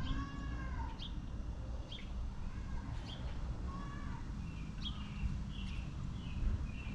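Birds chirping: short high chirps about once a second, with a couple of longer lower calls that rise and fall, over a steady low rumble.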